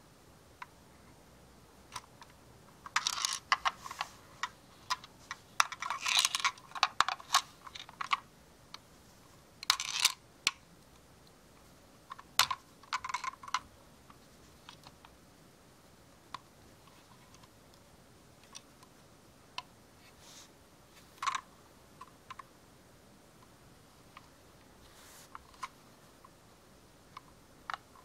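Small die-cast model van handled in gloved hands: light clicks, taps and short rattles of its metal body and plastic parts, in several bursts of rapid clicking during the first half, then only scattered single clicks.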